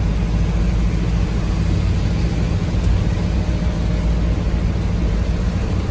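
Steady low engine and road drone heard from inside a vehicle's cab on a highway, with an even hiss of rain and wet tyres on the soaked road.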